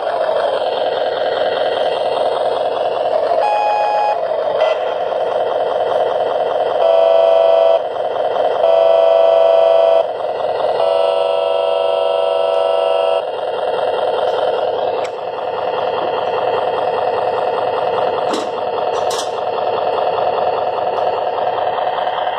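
A battery-powered Nylint tin toy truck's electronic engine sound, a steady buzzing drone. Its electronic horn sounds three times, each lasting one to two seconds, between about seven and thirteen seconds in, with a shorter tone about three and a half seconds in and a couple of clicks near the end.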